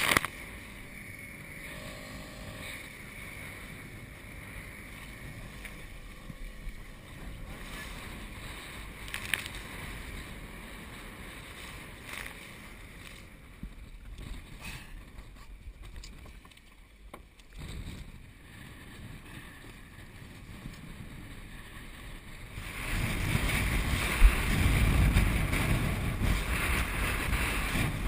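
Wind and choppy sea water around a small boat, a steady hiss with scattered knocks and splashes. About 23 s in, strong wind starts buffeting the microphone with a loud low rumble.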